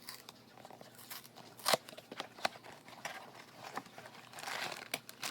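Cardboard blind-box packaging being torn open and handled: scattered small clicks and taps, a sharp snap about two seconds in, then crinkling rustle near the end.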